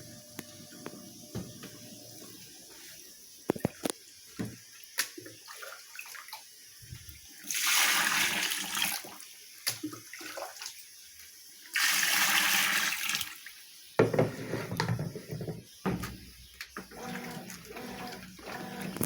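Consul 12 kg washing machine rinsing a blanket: water sloshing and splashing in the drum, with scattered clicks and two loud spells of rushing water about eight and twelve seconds in.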